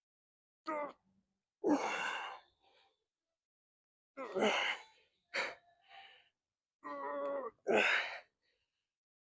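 A man's voiced, strained exhalations from lifting effort, about six short ones a second or two apart, with silence between.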